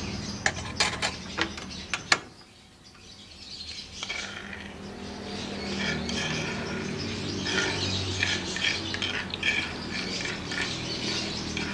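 A run of sharp clicks, then from about four seconds in a steady crackling sizzle: ground spice paste (bumbu halus) frying in hot oil in a pan.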